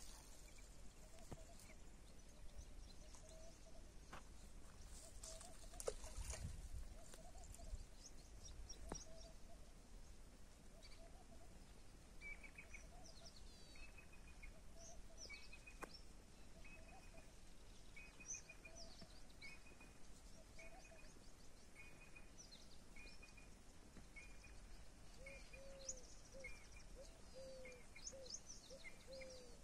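Faint outdoor quiet with birds calling: a short note repeated about once a second, a lower call repeating, and scattered high twitters. A brief low rumble comes about six seconds in.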